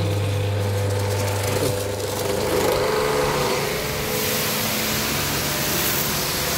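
Eurotech high-pressure washer running with a steady motor and pump hum. About four seconds in, the loud hiss of the water jet spraying the floor joins it.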